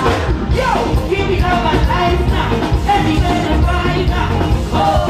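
Live soca music played loud through a concert sound system: a male singer's voice over a heavy bass beat.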